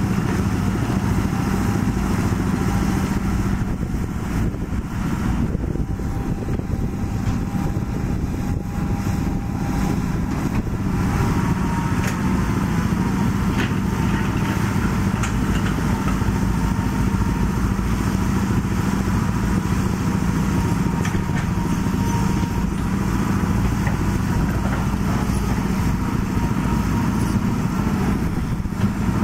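Kobelco 7055 crawler crane's diesel engine running steadily, with a faint high whine over it.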